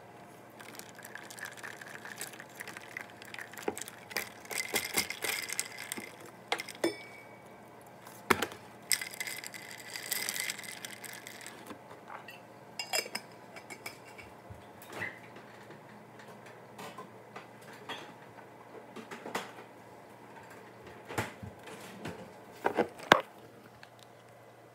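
Clinks, taps and knocks of small household objects being handled, scattered and irregular, with a few sharper knocks near the end. Twice there is a hiss lasting about two seconds.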